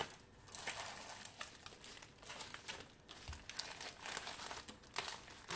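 Crinkling and rustling of a rolled diamond-painting canvas in its clear plastic sleeve as it is rolled up and handled, with irregular small crackles.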